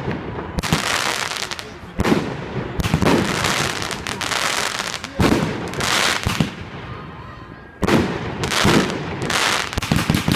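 'Armageddon' fireworks going off in a rapid run of shots: sharp bangs about every second, each trailed by a crackling hiss from the bursting effects.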